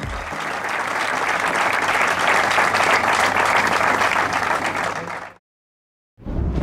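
Spectators applauding, a dense steady clapping that cuts off suddenly about five seconds in. After a short silence a low rumble starts near the end.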